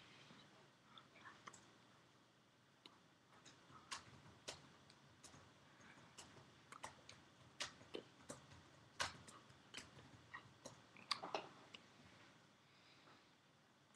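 Faint, irregular clicks and soft taps over near silence, from hands moving and touching close to a webcam microphone, with a small cluster of louder ones about eleven seconds in.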